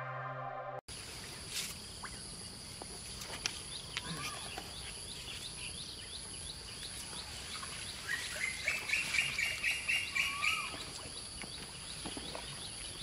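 Outdoor ambience of birds calling: short repeated chirps, then a faster, louder string of notes for a couple of seconds past the middle, over a steady high-pitched insect drone.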